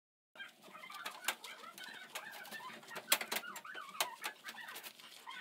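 Hand-cleaning a gas stovetop: a cloth wiping and rubbing on the hob, with sharp clicks and knocks from the burner parts and squeaky chirping tones from the rubbing. It starts abruptly just after the beginning.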